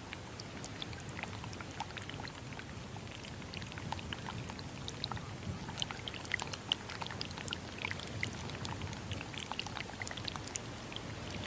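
Meltwater from thawing ice trickling and running, a steady low rush with many small ticks of drips and splashes, thickest about halfway through.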